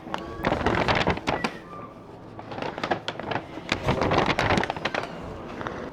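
Rustling and clicking handling noise in two spells, each a second or two long, with a brief lull between them.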